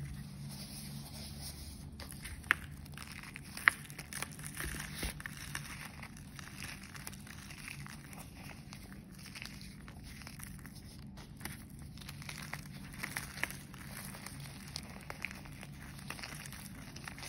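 A slab of dyed reformed gym chalk being broken and crushed by hand: two sharp snaps within the first four seconds, then continual crunching and crackling as the crumbled pieces are squeezed.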